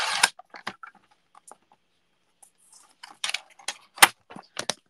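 Paper trimmer's sliding blade finishing a cut through cardstock, ending just after the start, followed by scattered light clicks and taps as the trimmer and card are handled, with the sharpest click about four seconds in.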